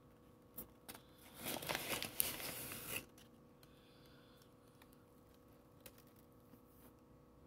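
Paper liner of an Argo cornstarch box crinkling for about two seconds as it is handled and a plastic spoon digs into the powder, after a couple of light clicks.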